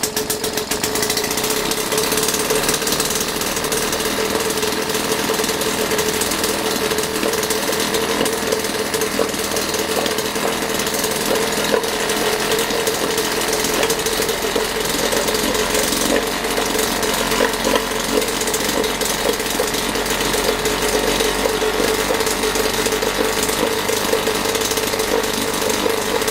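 Modified racing British Seagull outboard, a single-cylinder two-stroke with a high-compression head and an internal stack exhaust, running with no propeller fitted. It catches right at the start, then holds a steady high-speed run at about three-quarter throttle, near 15,000 rpm.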